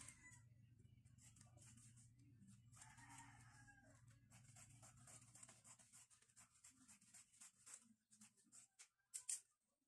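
Fabric scissors cutting through white cloth, a faint run of quick, crisp snips with the rustle of the fabric, and a sharp click near the end.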